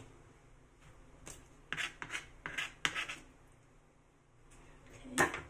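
Short scraping and rubbing sounds from kitchen handling: a quick run of them about two to three seconds in, and a single louder one near the end.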